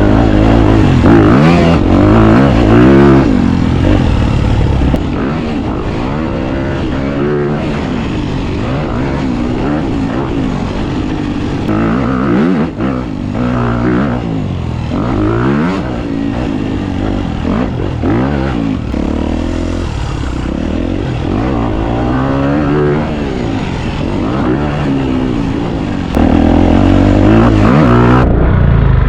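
Dirt bike engine being ridden hard, revving up and falling back again and again as the rider works the throttle and gears. It is loudest at the start and again near the end.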